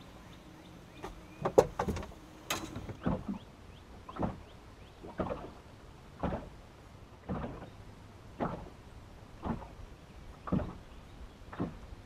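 A few sharp knocks and clicks of gear in the first three seconds, then water slapping against a fishing boat's hull in short, even slaps about once a second.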